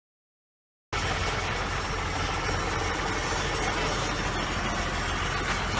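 Fire truck's engine running steadily with a constant low hum, cutting in abruptly about a second in after silence.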